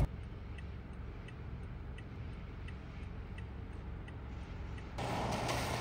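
Car turn signal ticking evenly, about three ticks every two seconds, over a low steady cabin rumble. About five seconds in, a louder rushing noise comes in.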